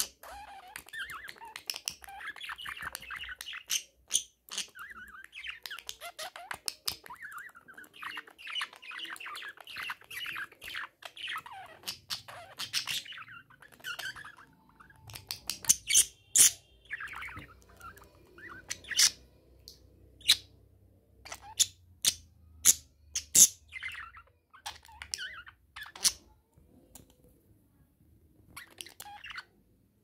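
Budgerigar chattering and warbling at its reflection in a small toy mirror. In the second half the chatter thins and a run of sharp, loud taps takes over, the beak pecking at the mirror.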